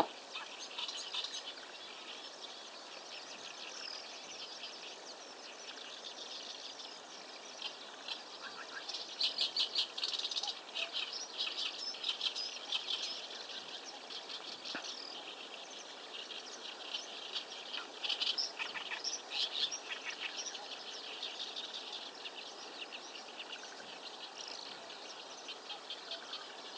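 Songbirds singing at sunrise, a dawn chorus of many short chirps and trills. The singing grows busiest about a third of the way in, with rapid runs of notes, and again about two-thirds of the way in.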